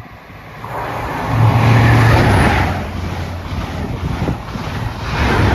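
A Class 43 High Speed Train passing through at speed, its diesel power cars and wheels on the rails loud. The leading power car's engine drone is loudest about a second and a half in, the coaches follow, and the rear power car's engine rises again near the end.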